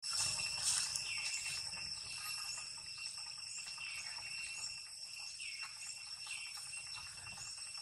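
Steady high-pitched insect drone, several held tones at once, with a few short chirping calls over it.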